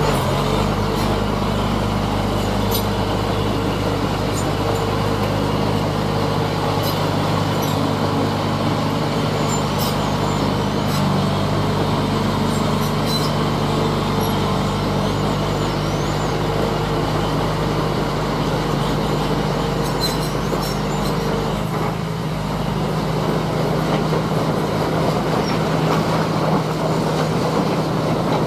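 Heavy diesel engine of earthmoving machinery running steadily at a constant pitch, with a few faint sharp clicks.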